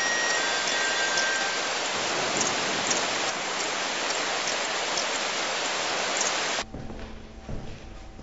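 A loud, steady, even rushing hiss like rain, which cuts off abruptly near the end and leaves a quieter low hum.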